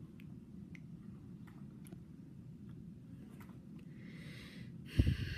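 Low steady room hum with a few faint scattered clicks, then rustling handling noise and one loud thump about five seconds in as the recording device is moved around.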